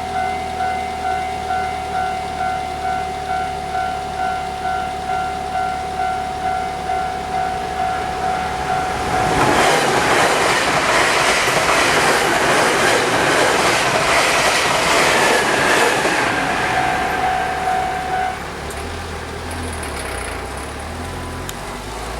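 Level-crossing warning bell dinging steadily, about two and a half strikes a second. About nine seconds in, a Nankai Koya Line electric train passes over the crossing with wheels clattering over the rail joints, the loudest sound for about nine seconds. The bell stops soon after the train has passed.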